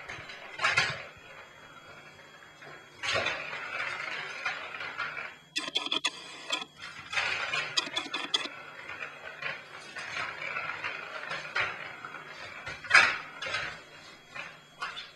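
Plastic ball rolling round the track of a circular cat toy as kittens bat at it, in several runs of rolling rumble. There is a quick burst of clattering clicks in the middle and a sharp knock near the end, where paws strike the plastic ring.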